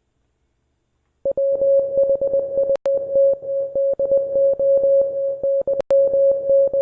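Morse code sent as a single steady beep near 600 Hz, keyed rapidly in dots and dashes, starting about a second in. Two brief clicks cut through it.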